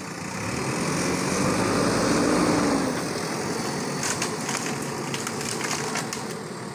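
JCB 3DX backhoe loader's diesel engine running under load, its pitch rising and falling again about two seconds in as it revs. In the second half, a run of sharp clicks and knocks sounds over the engine.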